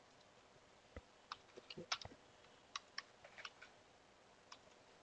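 Faint computer keyboard keystrokes: a dozen or so scattered clicks as a short terminal command is typed and corrected.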